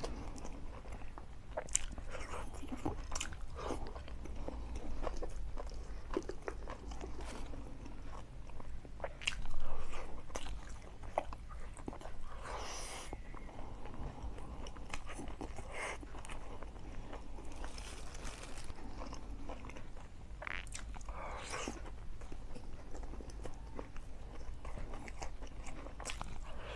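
Close-miked chewing and mouth sounds of a person eating curry and rice by hand: irregular wet clicks and smacks, with one louder burst about nine seconds in.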